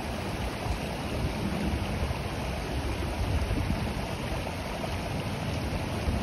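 Small rocky mountain stream rushing and splashing over stones in a steady, unbroken wash of water noise.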